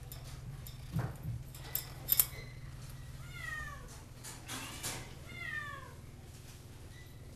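A shelter cat meows twice, each meow falling in pitch, about three and a half and five and a half seconds in, over a steady low hum. A few sharp clicks or knocks come about one and two seconds in and are the loudest sounds.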